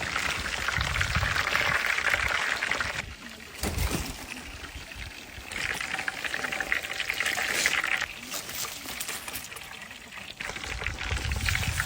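Hot oil sizzling and crackling around whole chickens being deep-fried in a large pot. It swells louder in three stretches, with quieter spells in between.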